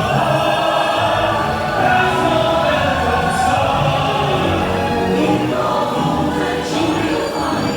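Choir singing over orchestral show music, sustained and sweeping.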